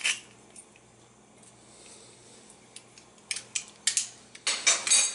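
Hand-held metal garlic press clicking as it is squeezed shut. Then a few light metal clicks, and a quick run of clinks and scraping near the end as the crushed garlic is worked off the press into the bowl.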